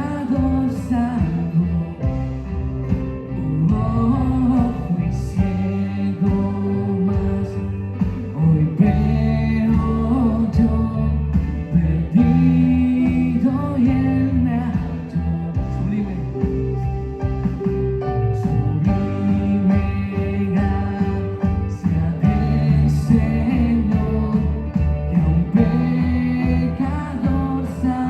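Live Christian worship band playing a song with singing, backed by drums with cymbals, bass, guitars and piano, at a steady beat.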